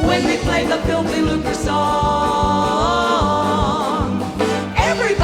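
Live band accompaniment with a steady beat while women's voices hold a note in close harmony, wavering together near the middle.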